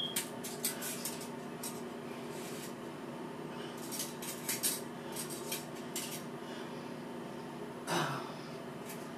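Shower curtain hooks clicking and clinking against the shower rod as the curtain is handled, in two clusters of quick clicks, with a louder knock near the end.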